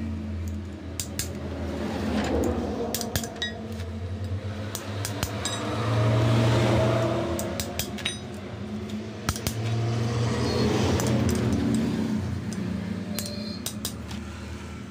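Metal spanner clinking and ticking on the nut of a clutch assembly as it is worked, in many short irregular clicks. A low drone swells and fades behind it, loudest about six and eleven seconds in.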